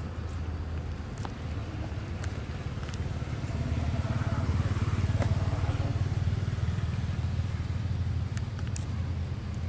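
Low, steady hum of a motor engine, swelling from about three and a half seconds in and easing off again, with a few faint clicks.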